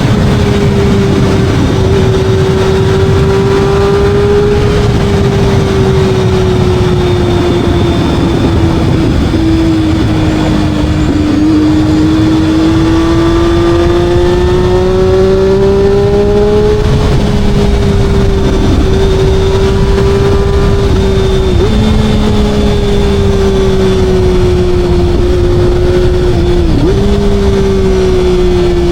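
Motorcycle engine running steadily at cruising speed, its note drifting slowly up and down with brief dips about two-thirds of the way in and again near the end, over a constant rushing noise.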